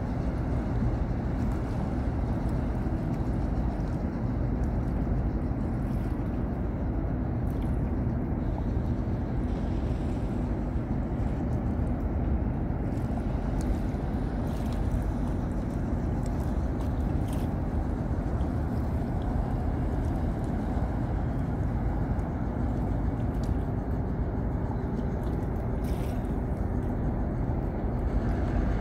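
Marine diesel engines running with a steady low rumble, unchanging in level.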